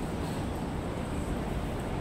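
Steady city street ambience: an even, low rumble of background noise with no distinct events standing out.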